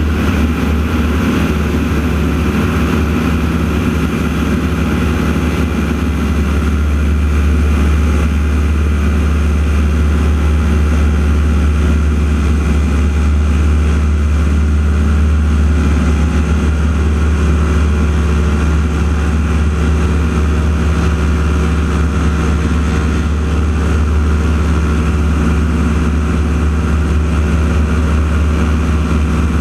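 Radial engine of a North American AT-6 Texan aerobatic aircraft running as a steady, unbroken low drone with a propeller hum.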